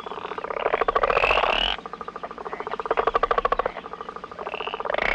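A frog croaking in rapid pulsed calls, three bouts of over a second each.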